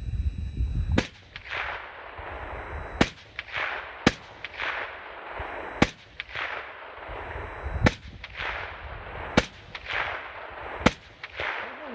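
Seven shots from a Ruger SFAR semi-automatic .308 rifle, fired at an unhurried pace about one to two seconds apart. Each sharp report trails off over about half a second.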